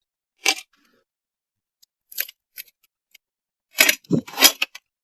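Stationery and plastic packaging being handled: a few scattered short clicks and rustles, then a denser burst of rustling and a soft knock near the end.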